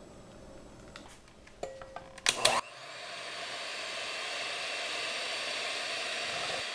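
A few sharp clicks and knocks, then an electric hand mixer running steadily, its beaters whipping cream in a glass bowl; the whirring starts about two and a half seconds in and builds over a second or so.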